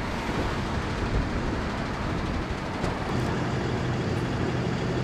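Street traffic with a vehicle engine running: a steady low hum under even road noise.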